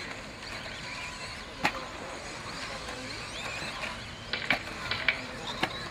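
Trackside ambience at an electric RC off-road race: a low murmur of distant voices with several sharp clacks, one about a second and a half in and a cluster of them near the end.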